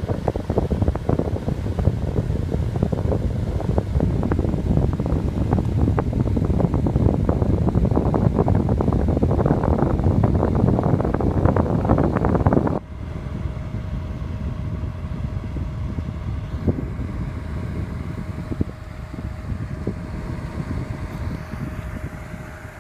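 Vornado high-velocity box fan running, its air rush buffeting the microphone. About halfway through the sound drops abruptly to a quieter, steadier whoosh with a faint steady hum.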